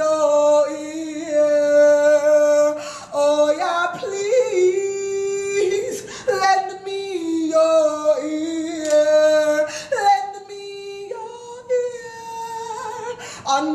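A woman singing solo without accompaniment, in long held notes that slide between pitches, in several phrases broken by short breaths.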